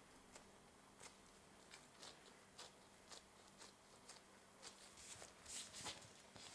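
Near silence with faint handling noise: nitrile-gloved hands pinching soft bread dough closed on a wooden worktop, making small scattered clicks and a brief burst of glove rustle about five seconds in. A faint electrical hum runs underneath.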